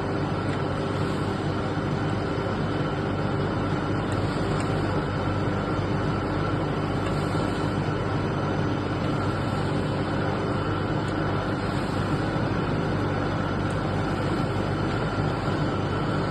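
Steady hum of running machinery with an even rushing noise, level and unchanging.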